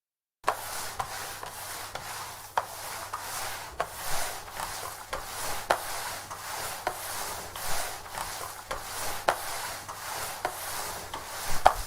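Flat mop rubbed back and forth over a wooden parquet floor: a steady scraping swish with a light knock at each stroke, roughly once a second, starting about half a second in.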